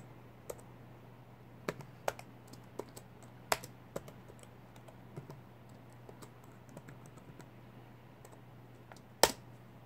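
Keyboard keys tapped one at a time, slowly and unevenly, as a password is typed, with one much louder click near the end as it is submitted. A low steady hum runs underneath.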